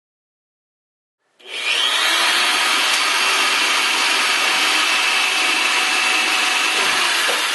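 Corded electric drill boring a pilot hole up through the wooden roof layers, starting suddenly about a second and a half in and then running steadily.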